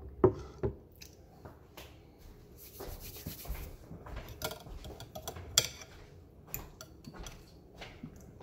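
Fork clinking and scraping on a plate of pasta while eating, a scatter of sharp clinks with the loudest two just after the start and another about five and a half seconds in.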